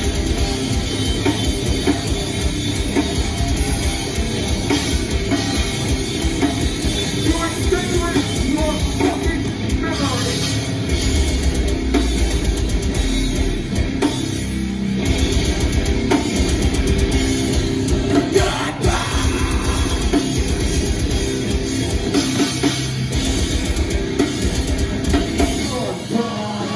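Metal band playing live: distorted electric guitars and a busy drum kit, with vocals over them.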